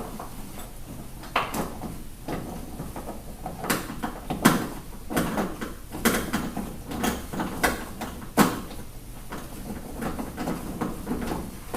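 Allen wrench being worked to screw the two metal pieces of a truck bed U-lock together. It makes irregular metal clicks and knocks, several of them, with a few louder knocks in the middle stretch.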